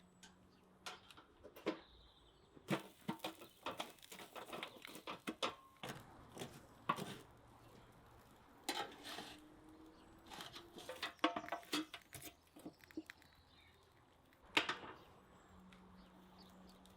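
Irregular sharp taps and clicks of objects being handled, coming in clusters with short pauses between them.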